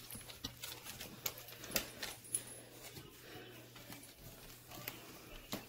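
Faint scattered clicks and taps of a dog moving about on a hardwood floor, over a low steady hum.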